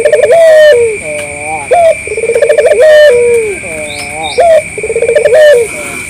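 Barbary dove (Indonesian local 'puter') cooing in its repeated rolling phrase: a quick trilled run of notes, a step up, then a long falling coo. The phrase comes about three times, every two and a half seconds or so.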